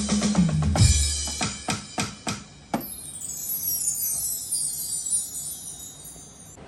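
Electronic drum kit and sampling pad played through the PA: a run of drum hits over a stepping bass line, then a single strike about two and a half seconds in sets off a shimmering, chime-like sample whose high tones slowly slide down in pitch and fade away.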